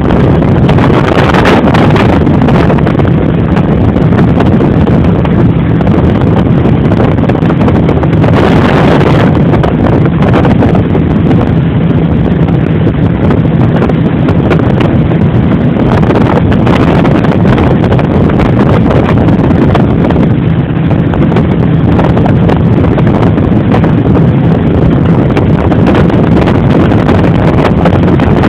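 Heavy wind buffeting the microphone, loud and unbroken, over a steady low engine drone.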